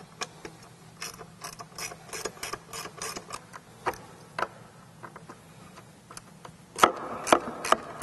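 Hand ratchet with a Torx T25 bit clicking in quick runs as it backs out small screws, with a few louder, sharper clicks near the end.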